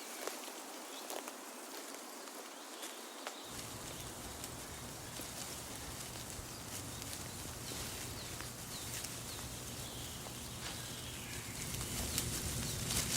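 Outdoor nature ambience: a steady hiss of background with faint bird chirps and scattered light clicks. A low rumble joins about three and a half seconds in.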